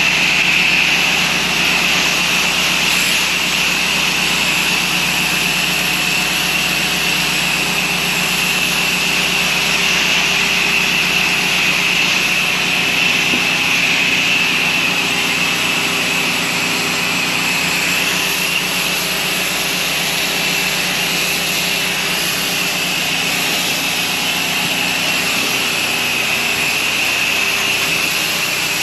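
Pressure washing rig running steadily: an engine-driven pump drones under the continuous hiss of water spraying from the wand.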